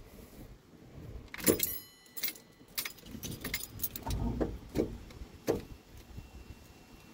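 Ignition keys jangling in the cab of a 1974 Chevy C30 truck, with a string of sharp clicks and knocks as the key is worked. The loudest click, about a second and a half in, is followed by a brief metallic ringing.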